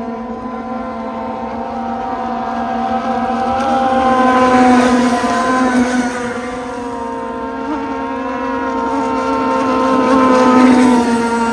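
Gasoline RC power boat's two-stroke engine running steadily at speed, its note swelling louder twice, about four seconds in and again near the end.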